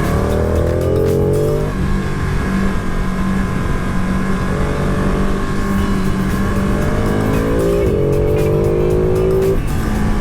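KTM Super Duke R V-twin motorcycle engine heard on board under way, accelerating twice with its pitch rising, the second pull broken briefly by a gear change, over steady wind noise.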